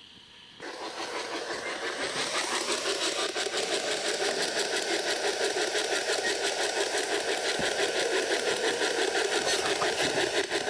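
P-SB11 spirit box sweeping through radio stations: a steady stream of choppy static and broken radio fragments that switches on about half a second in.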